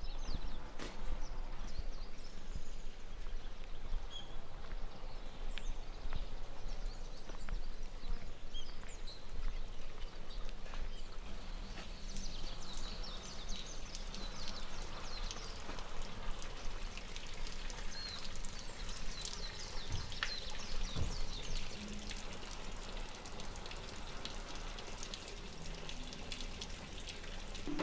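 Outdoor ambience: a steady background hiss with faint, scattered high bird chirps and small ticks.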